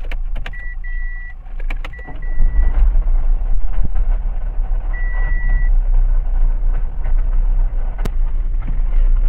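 Renault Symbol running in gear at low speed, with a low drivetrain rumble and several sharp knocks from the gearbox, bunched in the first two seconds and once more near the end. The mechanic puts the knock down to the gearbox running low on oil after a failed driveshaft bearing let it leak. A short dashboard warning beep sounds three times.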